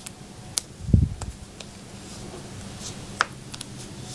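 A few light clicks and taps of board-game pieces being handled on a table, with one soft low thump about a second in, over a faint steady hum.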